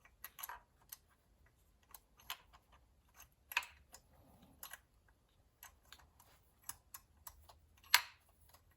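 Scattered small, sharp clicks and taps of metal tools and parts being handled at a workbench, the loudest near the end.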